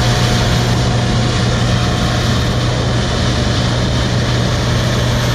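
Combine harvester running steadily through a soybean field: a constant low engine hum over a wide, even whirring hiss from the machine, with no change in pitch or load.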